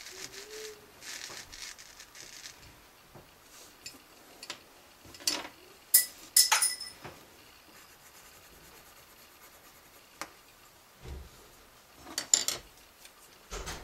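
Drawing tools being handled off the page: a few sharp clicks and small ringing clinks, loudest about six seconds in and again near the end, like a pencil or brush knocking against a hard container. There is a soft rubbing hiss in the first couple of seconds.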